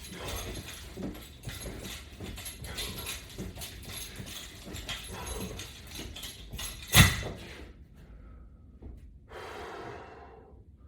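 A person's quick, noisy breaths and movement during resistance-band sit-ups, with one sharp loud knock about seven seconds in.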